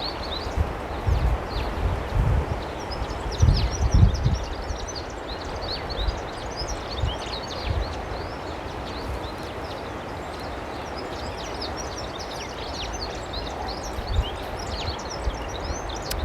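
Many small birds chirping and twittering over steady outdoor background noise, with low thumps on the microphone from about one to four seconds in.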